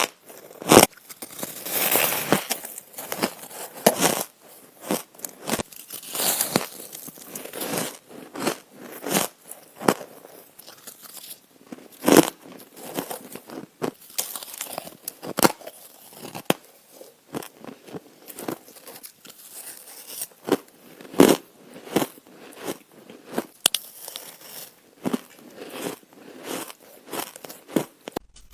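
Ice being bitten and crunched between a person's teeth: a run of irregular crisp cracks and crunches, one after another, with the loudest bites about a second in and again around the middle.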